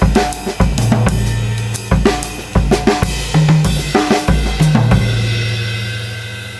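Pearl Midtown compact drum kit played with maple sticks: strokes on snare, toms and the 16-inch bass drum with cymbals, the last hits about five seconds in. The toms and cymbals are then left ringing and slowly fade out.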